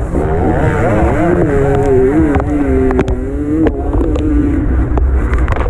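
Enduro dirt bike engine heard from onboard, revving up early, held under throttle, then dropping in pitch a little over halfway through as the throttle eases or it changes gear. A few sharp knocks from the bike over the rough dirt track, over a steady low rumble.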